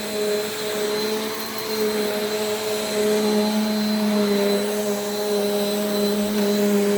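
Bissell PowerForce Compact upright vacuum running steadily: an even motor hum with a thin high whine over the rush of air.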